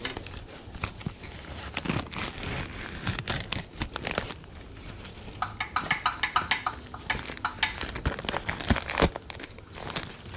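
Hands handling engine parts and cleaning rags: rustling and crinkling with scattered small clicks and knocks, and a quick run of clicks about halfway through.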